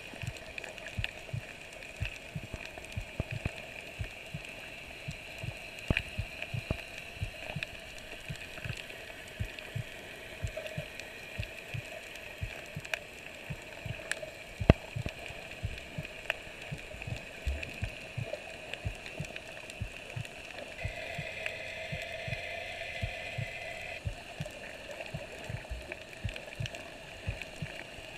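Underwater ambience recorded through a waterproof camera housing while snorkeling over a coral reef: dense, irregular clicking and crackling over a steady background hum.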